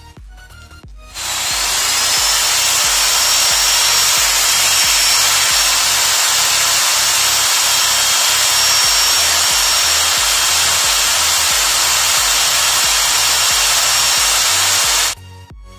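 Corded electric hand drill running at a steady speed, boring through a plywood square into a tree branch. It spins up about a second in and stops shortly before the end, over quiet background music with a beat.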